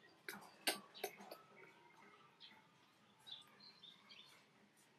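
Faint high chirps and squeaks: a cluster of short, sharp ones in the first second and a half, then a few brief gliding chirps later on.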